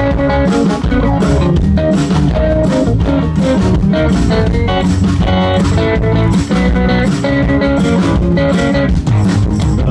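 Live rock band playing an instrumental passage: electric guitar and bass over a steady drum-kit beat.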